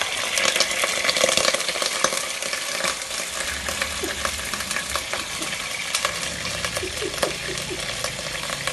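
Fresh cream (malai) crackling and sizzling in hot desi ghee in a pot, loudest in the first few seconds and easing a little after.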